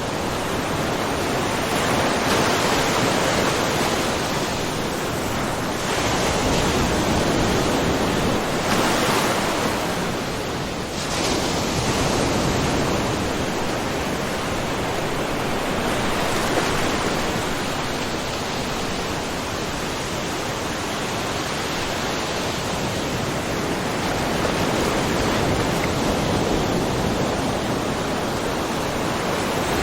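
Small ocean waves splashing and washing over a rocky mussel-covered shore, a continuous wash that swells and eases every few seconds.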